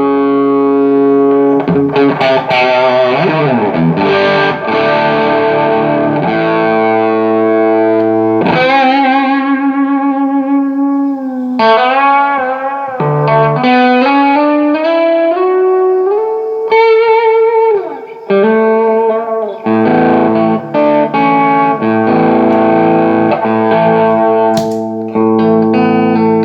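Electric guitar played through a Carr Lincoln EL84 tube amp, freshly fitted with JJ EL84 power tubes and biased cooler. Ringing sustained chords give way about eight seconds in to a single-note melody with string bends and vibrato, then chords return near the end.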